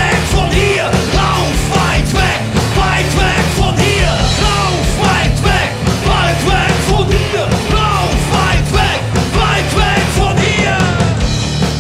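Rock band playing live and loud: electric guitar, bass guitar and drums.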